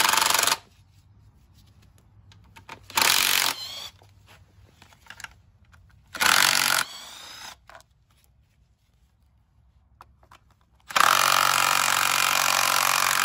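Cordless power tool spinning out the timing cover's 10 mm bolts in short runs: one at the start, brief ones about three and six seconds in, and a longer run of about two seconds near the end.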